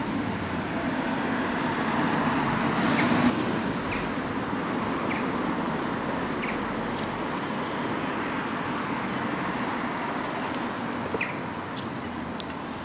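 Road traffic noise on a town street, swelling as a vehicle passes about two to three seconds in. A small bird chirps briefly several times over the steady hiss.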